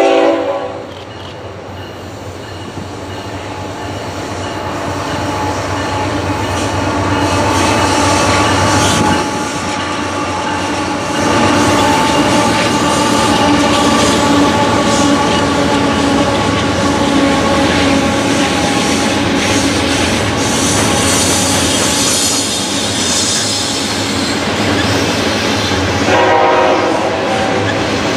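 CSX coal train passing close by, led by a GE Evolution-series diesel locomotive. A horn sounds at the start, and the locomotive's engine grows louder as it nears and passes. Loaded coal hoppers then roll by with steady wheel clatter, and a horn sounds again near the end.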